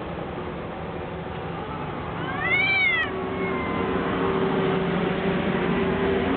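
Two domestic cats yowling at each other in a fight standoff: one short wail that rises and falls in pitch, then a long, low, steady drawn-out growling yowl.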